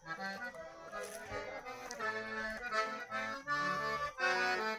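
Accordion music: a traditional tune played in a run of short held chords.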